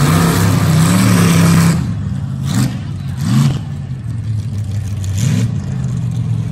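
Mega truck's engine at hard throttle for the first second and a half, then dropping back and blipped three times, each a short rise and fall in pitch.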